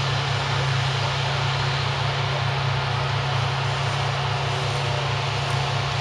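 New Holland CX8090 combine harvester running steadily while harvesting barley: a constant, even machine noise over a low, evenly pulsing hum.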